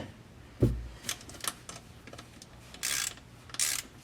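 Irregular clicks and knocks of tools and parts being handled at the work. A low thump comes about half a second in, and two short scraping or rustling noises come near the end.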